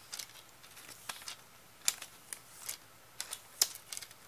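Scattered light clicks and ticks of small plastic VHS cassette parts being handled, about ten in all, irregularly spaced.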